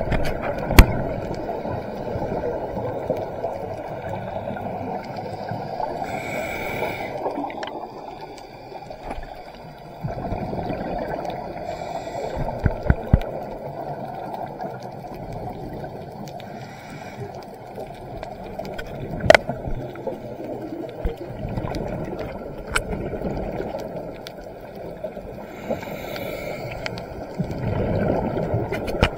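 Scuba diver breathing through a regulator underwater. Exhaled bubbles make a steady low gurgling, and a brief hissing inhale comes about every ten seconds, three times. Scattered sharp clicks are heard throughout.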